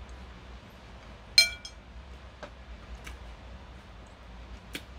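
A sharp, ringing clink of chopsticks striking porcelain dishware about a second and a half in, followed by a few soft taps.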